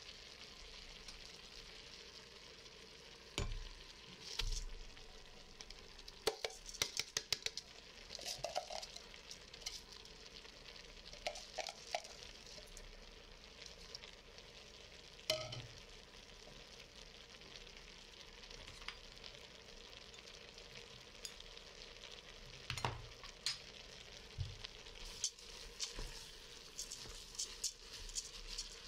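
Shredded carrots, onion and meat strips sizzling faintly in an Instant Pot's stainless steel inner pot, with a few knocks and a quick rattle of clicks as raw rice is added. Near the end a wooden spoon stirs and scrapes the rice through the vegetables.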